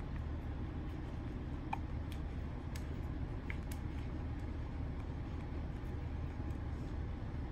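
Flip-phone keypad buttons being pressed: a few scattered sharp clicks and a couple of very short high blips, over a steady low hum.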